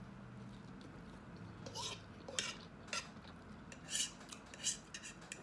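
Fork clinking and scraping against a dish of spaghetti: about six short clicks and scrapes, irregularly spaced, from about two seconds in.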